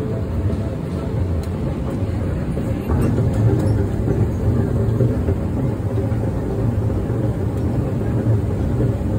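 Airport moving walkway running: a steady low rumble under the rider.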